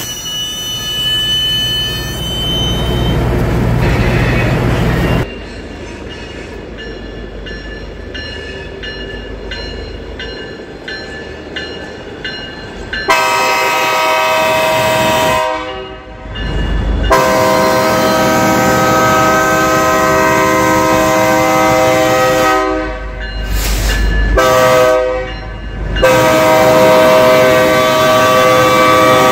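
Diesel freight locomotives' engines rumbling close by as they pass. Then a locomotive's multi-chime air horn sounds a long blast, a second long blast, a short one and a final long one: the warning for a road grade crossing.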